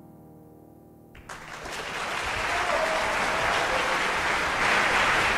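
The final chord of a grand piano dying away, then audience applause breaking out about a second in and building quickly to a steady, full level.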